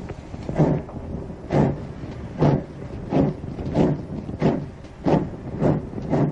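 GWR Collett 1400 class 0-4-2 tank engine No. 1420 puffing as it pulls away with its train, the exhaust beats coming quicker as it gathers speed, over a steady rumble, on an old cassette recording.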